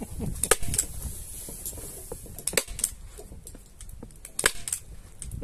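Hand-operated staple gun firing staples through stretched T-shirt fabric into a seat base: sharp snaps, roughly in pairs, three times over.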